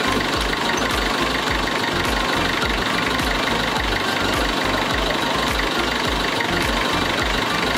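A motor vehicle's engine running steadily, heard from on board, with an uneven low rumble under it.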